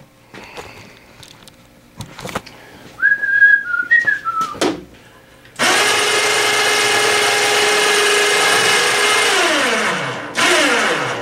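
Electric motor of a powered outboard lift stand running steadily for about four seconds, then winding down with falling pitch, and a second short run that also winds down, as the lift lowers the outboard. Before it, a few knocks and a short high squeal.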